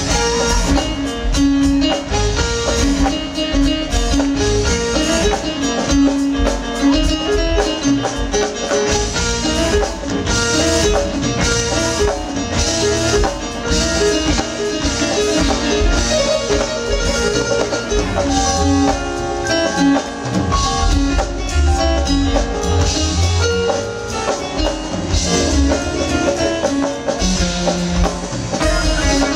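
Live smooth-jazz band playing an instrumental groove, with electronic keyboards over bass and drums keeping a steady beat.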